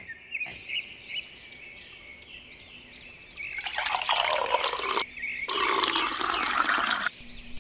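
Juice being poured from a glass jug into drinking glasses: two pours of about a second and a half each, with a short break between them, starting about three and a half seconds in.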